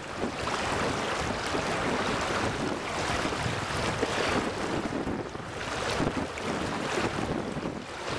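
Wind buffeting the microphone in uneven gusts over the steady rush of shallow river water.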